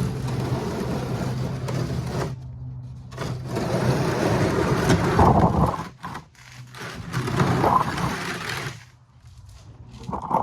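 An oil drain pan being dragged out from under the truck, scraping across the ground in three long pulls, with a steady low hum beneath.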